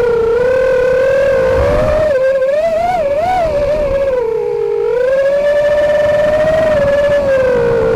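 Brushless motors of an FPV racing quad (Dragonfly Hurricane 2207 2500KV, three-blade props) whining as the throttle changes, heard from the onboard camera. The pitch wavers in the middle, dips slightly and climbs back about five seconds in.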